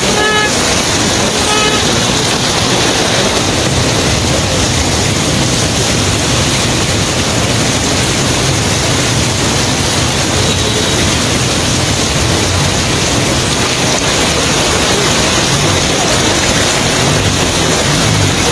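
Floodwater and heavy rain rushing in a steady, loud wash of noise, with two short pitched sounds in the first two seconds.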